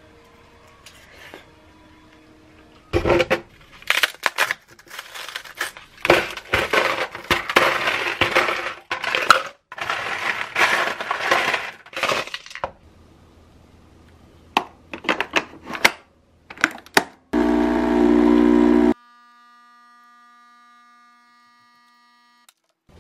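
Ice cubes clattering and clinking into a plastic tumbler for several seconds. After a few clicks, a coffee machine's pump buzzes loudly for about a second and a half, then a faint steady hum follows.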